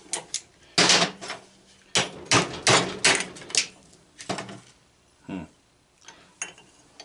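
Hammer blows on a barbecue propane regulator to knock its stuck brass fitting loose. About seven hard knocks come in quick succession over the first four seconds, then a few lighter taps.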